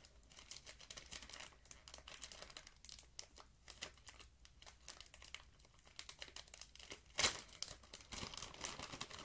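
Clear plastic bag crinkling and crackling as fingers work it open, with one much louder crackle about seven seconds in.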